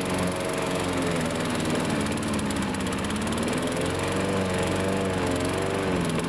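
Small petrol lawn mower engine on a homemade radio-controlled mower, running steadily, its pitch wavering a little in the middle and near the end.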